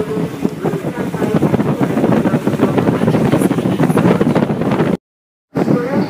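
Wind buffeting the microphone on the open deck of a moving tour boat, over the boat's running noise. The sound drops out completely for about half a second near the end.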